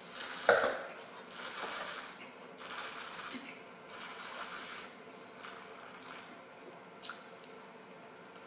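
A taster slurping a mouthful of red wine, drawing air through it to aerate it on the palate: a series of about five hissing draws, each about a second long. A short louder knock about half a second in.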